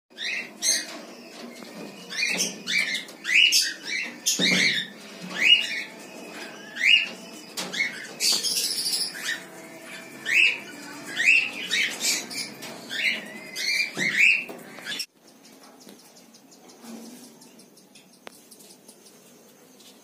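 Caged cockatiels calling: a string of short, rising chirping calls, about two a second, several birds overlapping. The calls cut off abruptly about fifteen seconds in, leaving only faint room sound.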